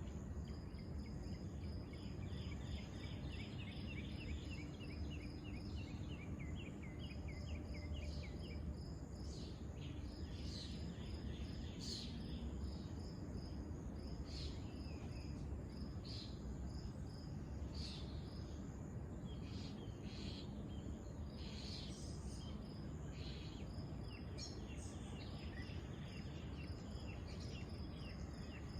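Crickets chirping in a steady, high, pulsing rhythm, with a fast run of quicker notes in the first few seconds and scattered short chirps and calls later on, over a low background rumble.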